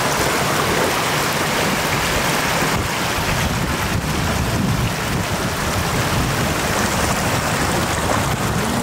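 Shallow floodwater rushing steadily over flooded ground, a continuous loud rush of running water.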